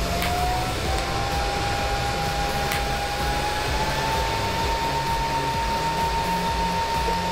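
Electric arc welding: a steady hissing crackle from the arc, with a steady whine underneath that climbs slightly in pitch in the first second.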